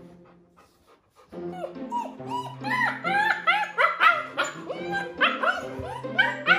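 German Shepherd puppy whining and yipping in quick, high-pitched cries that rise and fall, starting after a brief lull about a second and a half in, over background music.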